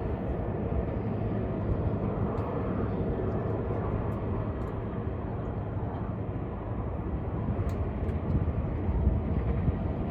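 Bombardier Global 6500 business jet's turbofan engines giving a steady rushing jet noise, mixed with strong wind buffeting the microphone.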